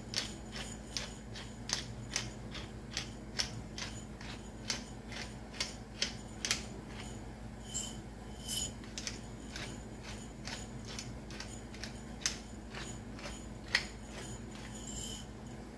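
Hand pepper grinder being twisted to grind black pepper: an irregular run of short, sharp clicks, about two a second.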